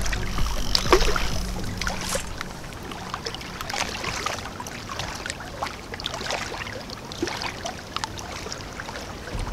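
River water lapping and splashing at the bank, with scattered irregular small splashes and clicks.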